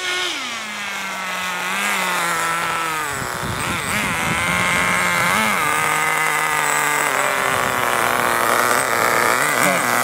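Small nitro (glow-fuel) engine of an RC buggy running on the road. Its note drops sharply right at the start, then holds a steady buzz with brief wavers and a short stumble about three seconds in. The engine is still being warmed up and its high-speed needle tuned.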